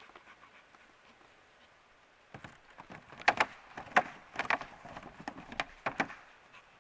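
Footsteps of two people and a miniature bull terrier walking across a thin panel laid on the grass: a run of irregular knocks and clatters that starts about two seconds in and stops about six seconds in, loudest in the middle.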